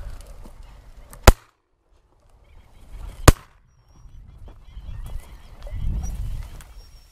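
Shotgun fired twice at flying ducks, two sharp, loud shots about two seconds apart.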